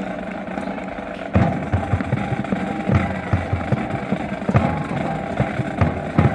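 Marching band playing: a held low note, then about a second and a half in the full band enters with drums hitting at a steady beat.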